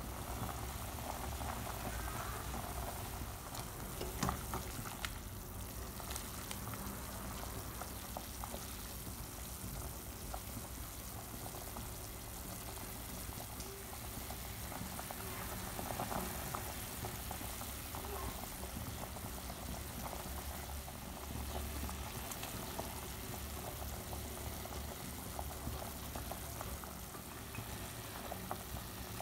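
Water boiling hard in a large stainless steel stockpot with chicken pieces in it, a steady bubbling, with one sharp knock about four seconds in.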